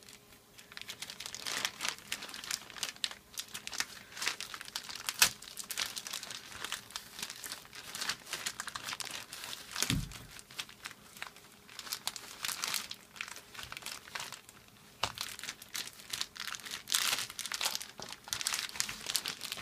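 Plastic courier mailer bag crinkling and rustling as it is handled and pulled open by hand. Irregular crackling runs throughout, with a couple of sharper snaps about five and ten seconds in.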